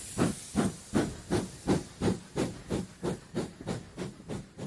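Steam locomotive chuffing: rhythmic puffs of exhaust steam, about three a second, quickening slightly and fading away toward the end.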